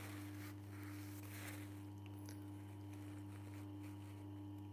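Low, steady hum with a few faint rustles.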